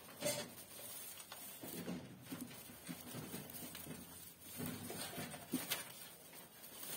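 Pregnant rabbit doe moving about in her straw nest box, the dry straw rustling and crackling with scattered scratches and taps, a few sharper ones near the start and about five and a half seconds in; the sound of her arranging the nest ahead of kindling.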